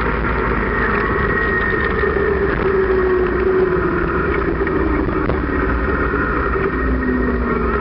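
Motorcycle engine running on the road, heard from its sidecar with wind rushing past. The engine note eases down slightly a few seconds in.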